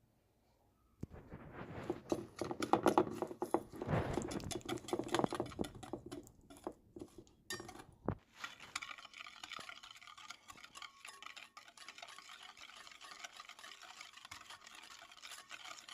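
Batter being mixed in a bowl: rapid stirring strokes for several seconds, then a softer, steady mixing sound.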